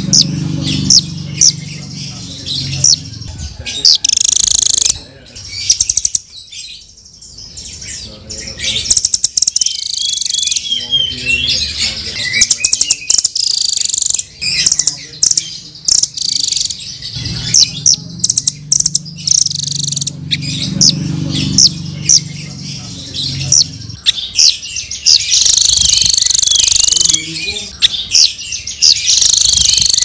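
Blue nuthatch calling: rapid runs of sharp, high chirps and trills in dense bursts. Around six to eight seconds in there is a short quieter gap.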